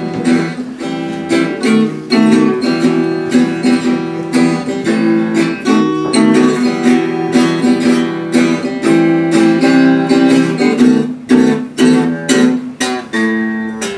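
Acoustic guitar strummed in a steady rhythm, chord after chord, playing a song's instrumental introduction before the vocals come in.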